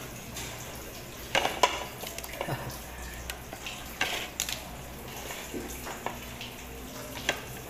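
Scattered light taps and clicks of fingers and food against plastic plates during eating by hand, the sharpest a little over a second in and about four seconds in, over a steady background hiss.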